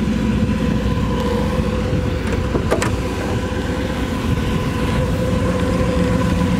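1967 Chevrolet Camaro's 327 V8 with headers and dual exhaust idling steadily, with a brief click about three seconds in.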